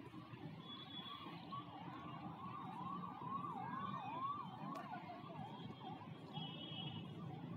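Faint siren of an emergency vehicle, a fast yelp sweeping up and down about twice a second, that starts about a second in and fades out near the end.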